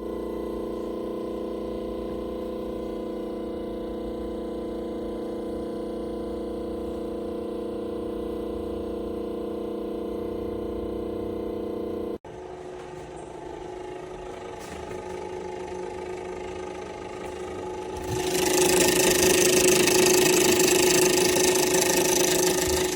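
A steady, even machine hum that cuts off suddenly about twelve seconds in. A quieter rushing noise follows and swells into a loud hiss for the last few seconds.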